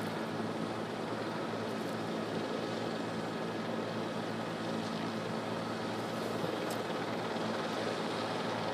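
Steady drone of aircraft engines: a constant low hum that holds level throughout.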